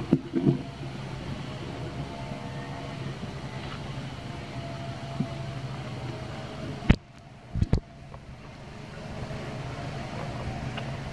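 Steady low hum of a motor running in the background, with a few sharp knocks at the start and about seven seconds in, where the hum briefly drops away.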